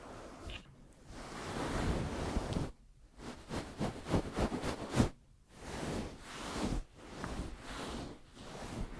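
Hands rubbing and fluttering close to the microphone, giving a whooshing, rustling sound. It comes in swells of a second or two, with short pauses between them.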